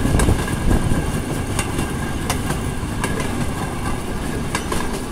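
Small vehicle riding along narrow-gauge railway track: a steady running rumble, with sharp wheel clicks over the rail joints at uneven intervals, about one a second.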